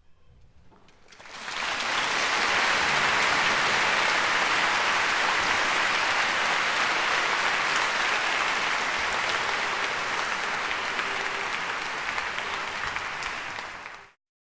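Audience applauding in a concert hall, starting about a second in as the last note dies away and cutting off abruptly near the end.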